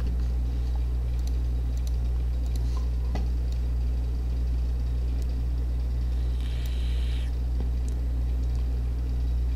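Steady low hum of background noise on the microphone, with a few faint clicks and a short hiss about seven seconds in.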